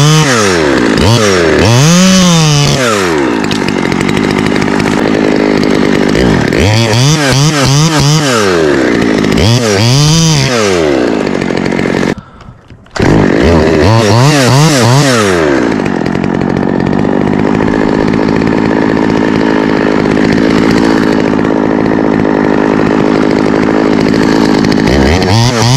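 Top-handle chainsaw cutting alder limbs. In the first half it is revved up and dropped back several times. After a break of under a second about halfway through, it runs at a steadier high pitch through a long cut.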